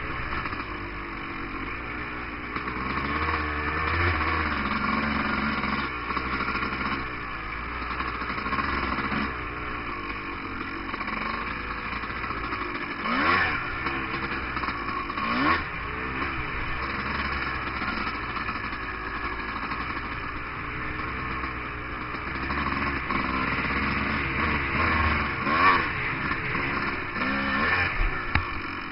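Dirt bike engine running under way, its revs rising and falling with the throttle, with a few short louder blips.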